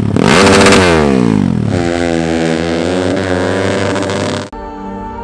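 Kawasaki KLX 200cc single-cylinder dirt bike engine revved once, its pitch sliding down as the revs fall, then running at a steadier speed. Near the end the engine sound cuts off suddenly and background music takes over.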